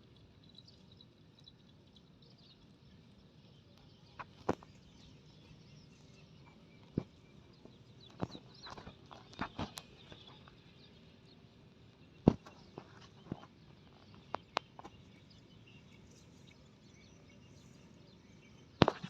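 Quiet farmyard ambience with faint bird chirps, broken by scattered sharp knocks and clicks, the loudest about twelve seconds in.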